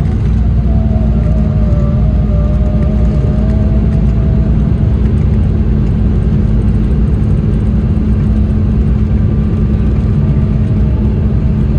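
Cabin noise of an Embraer E190's GE CF34 turbofans and landing gear as the jet rolls along the ground just after landing: a loud, steady low rumble with an engine whine that slowly falls in pitch as the engines spool down. A fainter whine rises again near the end.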